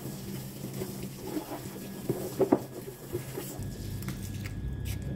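Water from a garden hose pattering onto a dryer part and the wet pavement, with a few sharp ticks around two and a half seconds in. A low rumble comes in about three and a half seconds in.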